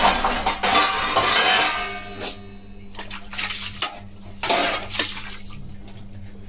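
Metal cookware clinking and knocking, four short sharp knocks between about two and five seconds in, over a hissing sizzle from a curry simmering in the pan that is loudest in the first two seconds.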